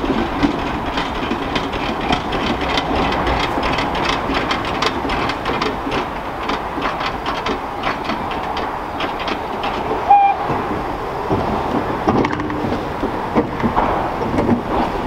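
Small flywheel-driven steam locomotive moving slowly along a yard track: a steady mechanical rattle with many quick clicks and clanks from its motion. A brief squeal comes about ten seconds in.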